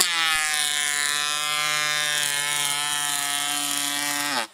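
18V cordless twin-blade hand planer running under load while taking a 1 mm-deep cut along a wooden board: a steady, loud motor and cutter-head whine. Near the end it falls in pitch and stops as the planer is switched off.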